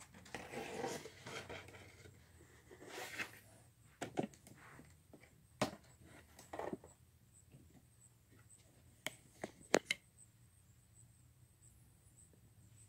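Faint handling noises in a quiet small room: a soft rustle, then scattered light clicks and taps, with three sharper clicks close together later on.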